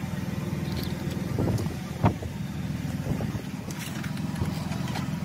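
A motor engine running steadily with an even low pulse, with a few short knocks, the loudest about two seconds in.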